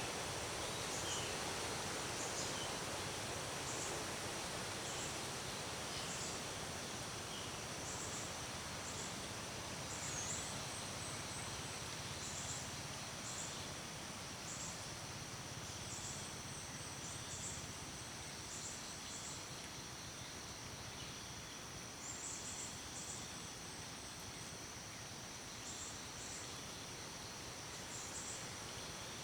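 Outdoor nature ambience: a steady hiss with a thin, high, steady tone, and faint high-pitched bird chirps repeating every second or so, sometimes in quick clusters.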